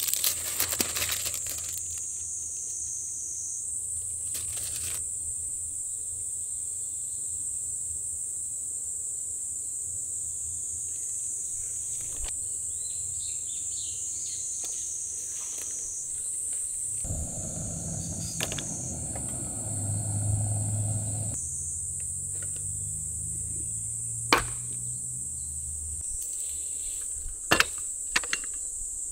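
Insects chirring steadily in a high, continuous band. A few sharp clicks or knocks break in, and a low hum rises for a few seconds a little past the middle.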